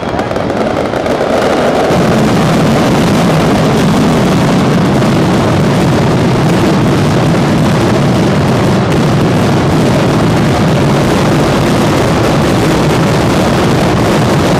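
Spanish night fireworks display at full intensity: a dense barrage of bangs so rapid that they blur into one continuous, very loud noise.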